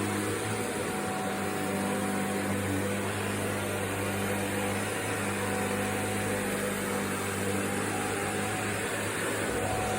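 Vacuum cleaner running steadily: a constant motor hum under an even hiss.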